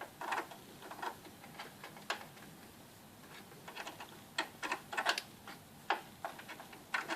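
Light, irregular clicks and knocks of an HDMI cable being handled and its plug pushed into a socket, with a quick run of clicks about two thirds of the way in.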